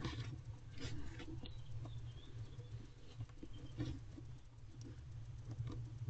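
Barn owl moving in a nest box: scattered scratches, taps and rustles of talons and feathers against the wood shavings and box walls as she swats with a wing and shifts over her eggs, over a steady low hum.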